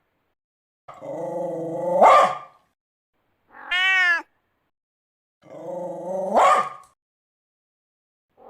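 An animal calling out three times: two drawn-out cries that start low and rough and rise in pitch near the end, and a short arched call between them.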